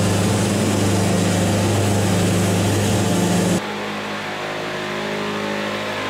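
Wood-Mizer band sawmill machinery running steadily with a strong hum. About three and a half seconds in it changes abruptly to a quieter, duller running sound as the band saw cuts through the oak log.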